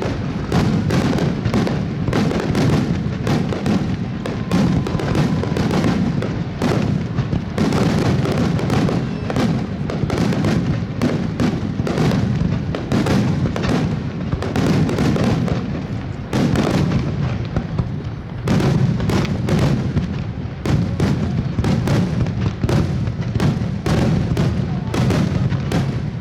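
A dense fireworks barrage: shells bursting in rapid, overlapping booms and bangs, several a second with no pause.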